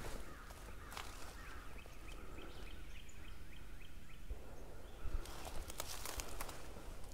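Footsteps crunching through dry leaf litter, loudest from about five seconds in. In the quieter middle stretch an animal gives a rapid run of short, falling chirps, about four a second, for roughly two seconds.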